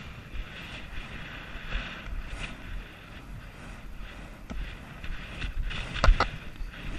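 Horse galloping on grass, its hoofbeats thudding under steady wind rush on a helmet camera's microphone. About six seconds in, as it reaches a fence, two sharp knocks come close together, the loudest sounds here.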